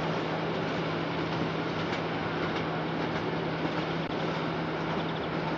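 Tram running along its track: a steady hum under continuous rumbling noise.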